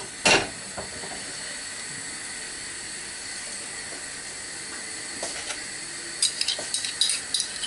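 A knock as the dish scrapes against the saucepan just after the start, then a steady hiss, with clusters of short crackles late on as the butter starts to melt and spit in the hot saucepan.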